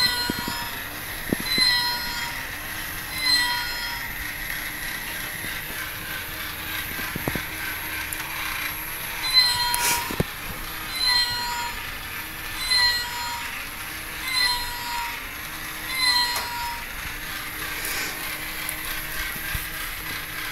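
Battery-powered walking plush toy cat: its small gear motor whirring steadily while its electronic voice repeats a short, slightly falling meow about every second and a half to two seconds.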